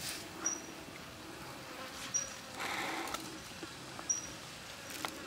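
A short, high chirp repeated about every two seconds from a small creature, over a low background hiss, with a brief rustle a little past the middle.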